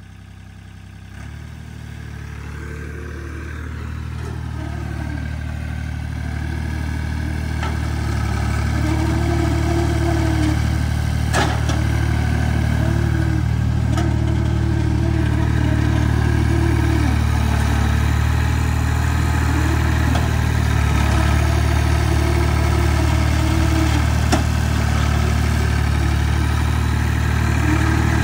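A vehicle engine running, growing louder over the first ten seconds or so and then holding steady, with a few sharp clanks.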